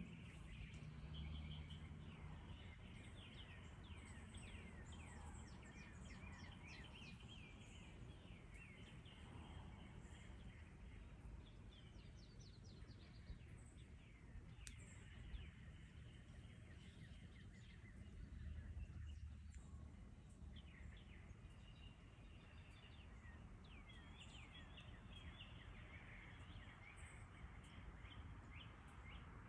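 Many small birds chirping and calling over one another, a steady stream of short, quick, falling notes, faint over a low background rumble.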